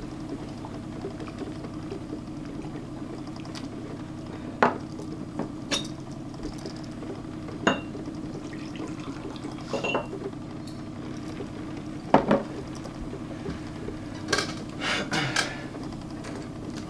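Cut-crystal glassware clinking: a tumbler set down and a crystal decanter knocking against it as whisky is poured in, with a few short sharp clinks, some ringing, and a cluster of them about two-thirds through. A steady low hum runs underneath.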